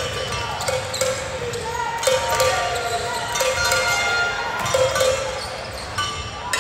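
Basketball dribbled on a hardwood gym floor with a run of short bounces, mixed with the squeaks of sneakers sliding on the court.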